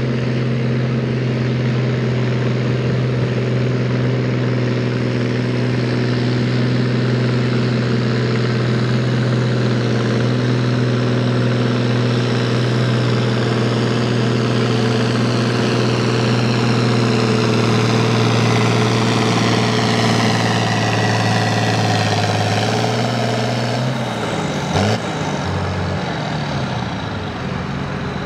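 A hot stock pulling tractor's turbocharged diesel engine running flat out at a steady pitch under the load of the sled, then coming off the throttle about twenty-four seconds in, with a single sharp crack as the note falls away.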